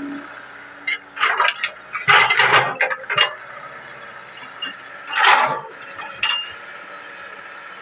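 Hitachi 110 excavator running steadily, with several bursts of metallic clanking and rattling, the loudest about two and five seconds in.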